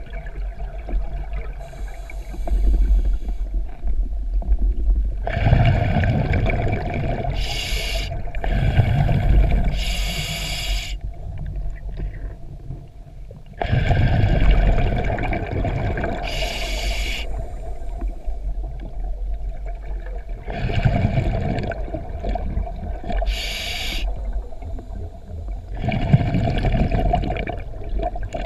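Scuba diver breathing through a regulator underwater: short hissing inhalations alternate with longer bubbling exhalations, in a cycle of several seconds, over a constant low rumble.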